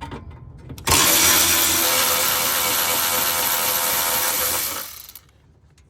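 Power tool running steadily at one speed for about four seconds, starting about a second in, as it backs out a 10 mm bolt holding the battery tray.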